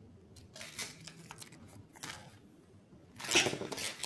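A few short bursts of rustling from packaging being handled, the loudest near the end.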